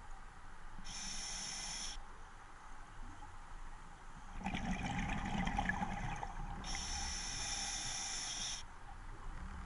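A scuba diver breathing through an open-circuit regulator underwater: a hissing inhale about a second in, a bubbling exhale from about four and a half seconds, then a second hissing inhale.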